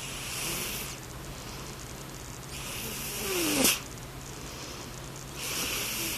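Sleeping domestic cat snoring: three airy, hissing breaths a couple of seconds apart. The middle breath is the longest and loudest, ending in a brief rising nasal squeak.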